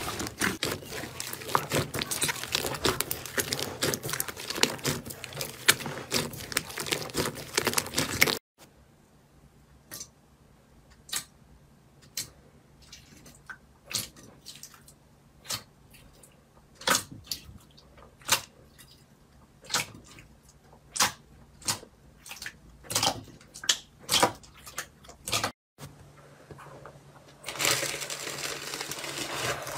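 Hands squishing slime: dense crackling as blue slime is kneaded into fake snow, then sharp pops and clicks, about one a second, from a glossy slime in a bowl, and crackling again near the end as foamy slime is scraped.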